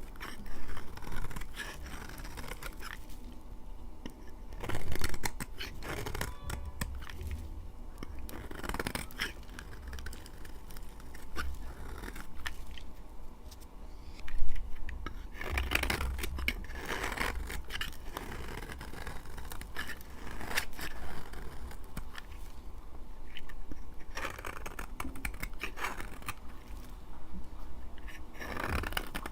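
Dry laundry soap being cut with a blade: crisp scraping and crunching cuts at an irregular pace, a few of them louder than the rest.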